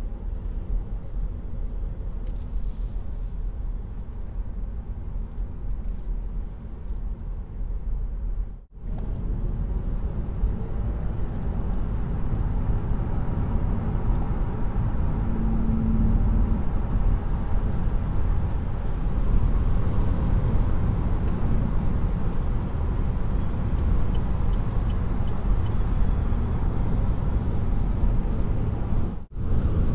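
Opel Ampera-e electric car driving, with no engine sound: a steady low rumble of tyre and road noise with wind, a little louder after a brief break about nine seconds in. A short low hum sounds around the middle, and there is another brief break near the end.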